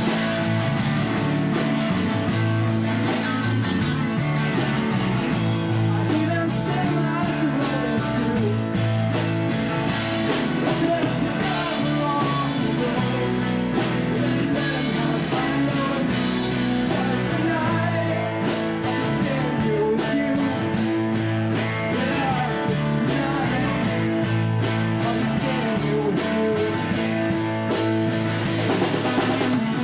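Rock music: a band with guitar and a singing voice, playing steadily.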